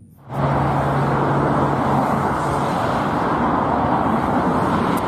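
Boeing 737 jet airliner's engines on the runway: a steady, loud rushing roar, with a low hum under it that fades out about halfway through.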